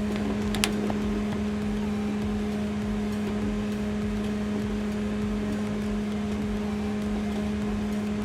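LG microwave oven running on high power: a steady hum with its cooling fan turning, free of rattling now that the fan has been repaired. A short click about half a second in.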